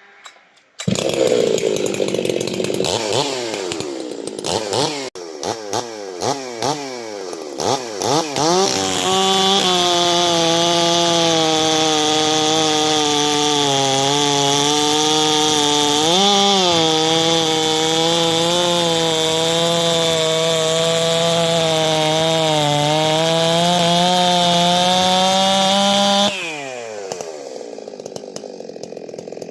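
A big 91 cc Stihl two-stroke chainsaw comes in suddenly about a second in and is blipped through quick rises and falls in revs. It is then held at high revs for about seventeen seconds, the pitch wavering and dipping, before the throttle is released and it drops back to a lower idle near the end.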